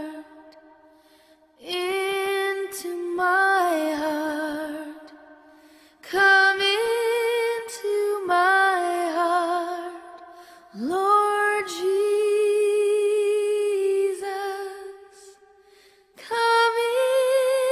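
A woman singing a slow, gentle song with vibrato, in phrases of a few seconds separated by brief pauses.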